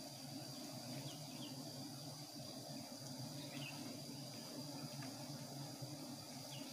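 Steady low hum of a swarm of giant honeybees (Apis dorsata) around their comb in smoke, with a thin steady insect drone above it. A few short falling bird chirps come about a second and a half in, again a couple of seconds later, and near the end.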